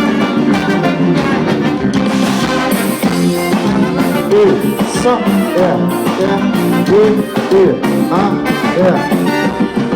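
A live band playing a song during its sound check, with a lead melody bending in pitch in the second half.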